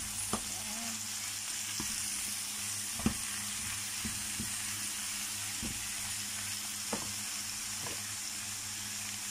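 Bok choy stir-frying in oil in a hot pan: a steady sizzle, with scattered light knocks of a spatula against the pan as the greens are turned, the sharpest about three seconds in.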